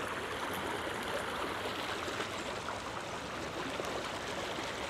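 A creek running over rocks: a steady rush of water.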